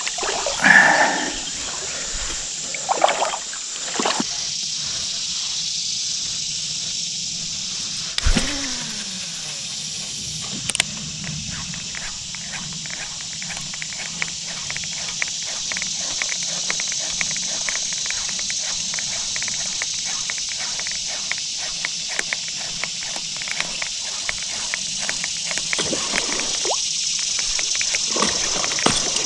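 A fishing reel is cranked in a steady retrieve, giving a fast run of fine ticks over a steady high hiss. About eight seconds in, a cast sends the line off the spool with a falling whir.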